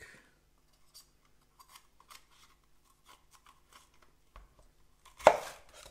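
Faint crackling and rustling of a red bell pepper being pulled apart and cleaned by hand, with one sharp knock a little over five seconds in.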